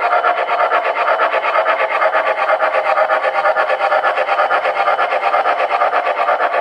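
Simulated steam chuffing from an MTH Premier O-gauge Shay model locomotive's Proto-Sound 2 sound system as it runs: a fast, even rhythm of several chuffs a second, steady in level.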